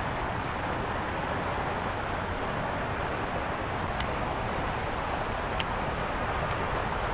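Steady outdoor background rush with two sharp clicks, about four and five and a half seconds in.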